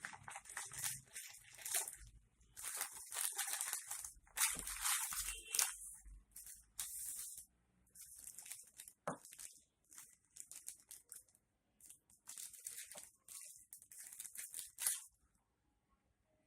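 Packaging being handled and torn open by hand: irregular bursts of crinkling, rustling and tearing that stop about 15 seconds in.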